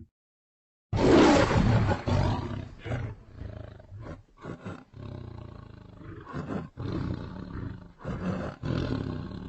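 A large animal roaring: one loud roar about a second in, then a series of shorter calls that grow fainter.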